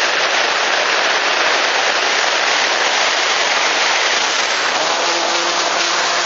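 Steady rush of airflow buffeting the onboard camera of an EasyGlider radio-controlled foam glider in flight. A faint low hum joins about five seconds in.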